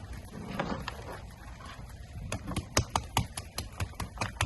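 Hard shell of an Alaska king crab clicking and tapping as it is cleaned by hand. A run of sharp, irregular clicks, about four a second, starts around two seconds in.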